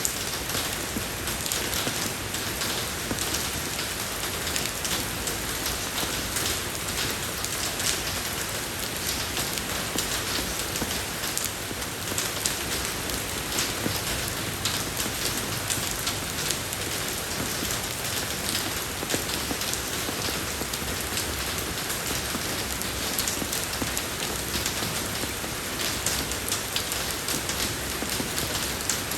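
Steady rain falling on a road surface: an even hiss dotted throughout with many sharp drop ticks.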